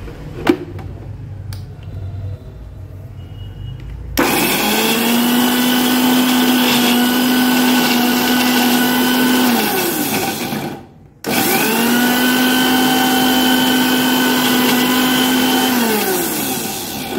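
Usha Colt Plus MG 3772 750 W mixer grinder grinding garlic cloves in its small stainless-steel jar. A click comes about half a second in. The motor then runs fairly loud and steady for about six seconds, winds down, and after a brief pause runs again for about five seconds before winding down near the end, pulsed in two bursts.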